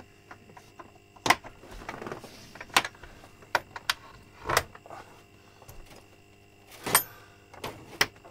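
Slide bolts and latches on the wooden smokehouse door being worked shut: about eight sharp clicks and knocks, irregularly spaced.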